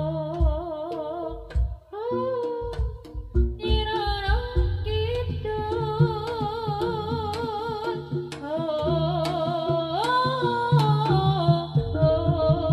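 Javanese jaranan ensemble playing live: a wavering, ornamented melody with vibrato over steady drum strokes.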